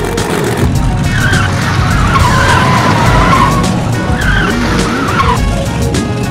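Cartoon tyre-squeal sound effects from the racing monster trucks, a long wavering screech from about a second in that ends suddenly near the end, over background music with a steady beat.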